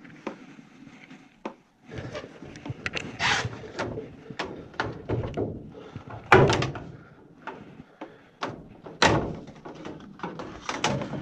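Irregular clunks, knocks and scrapes of hands working on a condensate pump, taking it apart to get at its reservoir, with two louder thunks about six and nine seconds in.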